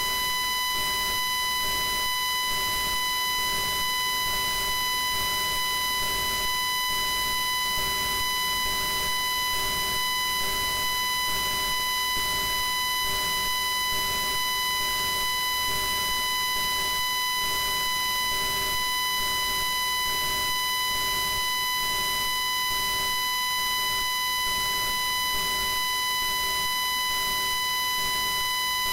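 Continuous high-pitched feedback whine from a failed microphone: one steady tone with overtones above it and a fainter wavering hum below, unchanging in level.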